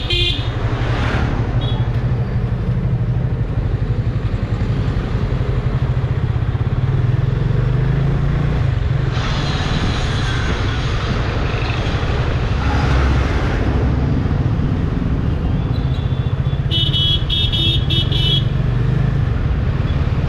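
Yamaha FZ25's single-cylinder engine running steadily under way in city traffic, a constant low rumble. Near the end a vehicle horn beeps several times in quick succession.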